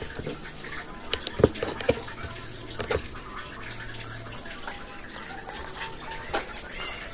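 Spoon working through thick sambal terasi in a cobek mortar: scattered wet clicks and scrapes of the spoon against the bowl.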